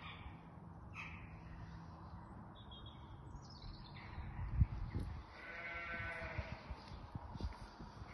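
A single animal call lasting about a second and a half, over low thumps; the loudest thump comes about halfway through.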